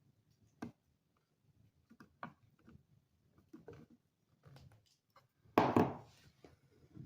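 Small clicks and taps of a folding knife and a small button part being handled and fitted together, with one louder rustle lasting about half a second near the end.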